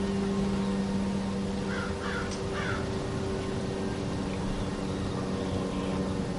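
Three short bird calls about two seconds in, over a steady low mechanical hum.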